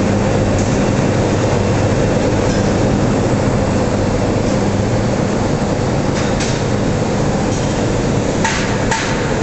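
Steel mill machinery noise: a loud, steady industrial hum and rumble with several sharp knocks in the second half.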